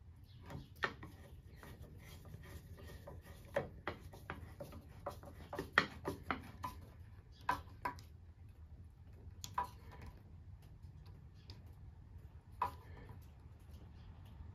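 Hand screwdriver turning a screw in a cast iron desk leg: irregular metal clicks and ticks as the tip catches and slips in the screw head, bunched in the middle and loudest about six seconds in.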